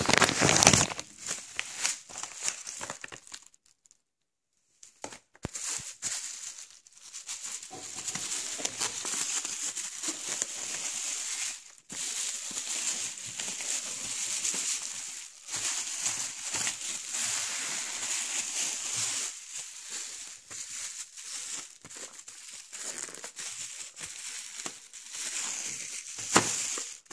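Thin plastic bag crinkling and rustling as it is handled and pulled open, in a dense run of crackles with a brief silent gap about four seconds in.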